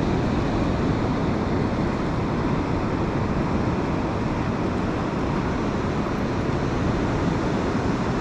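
Steady rushing of ocean surf breaking on a sandy beach, mixed with wind buffeting the microphone.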